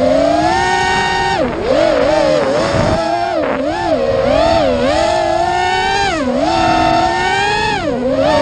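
Racing quadcopter's four brushless motors (Hobbywing XRotor 2205 2300kv) spinning 5-inch props, whining loudly. The pitch swings up and down over and over as the throttle is pushed and pulled through the course. A short rushing hiss comes about three seconds in.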